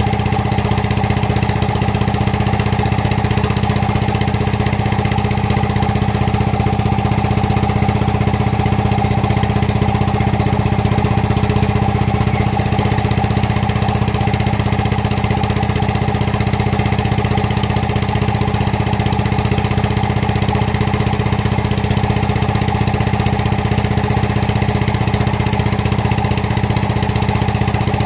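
Excavator's diesel engine running steadily at idle, an even, unchanging hum.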